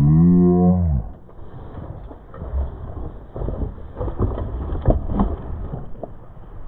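Hardtail mountain bike rolling over a rough dirt trail: tyre and wind noise with rattling knocks from the bike, several sharp ones about four to five seconds in. A loud pitched sound, with a pitch that bends, fades out about a second in.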